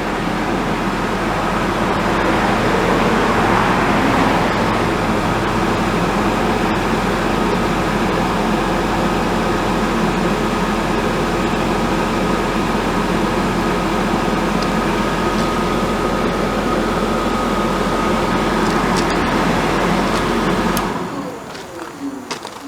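Dometic RV furnace blower fan running steadily for about twenty seconds without the burner ever igniting, then shutting off and spinning down near the end. This fan-only run with no ignition is the fault being chased, which the technician puts down to an airflow problem or a bad sail switch.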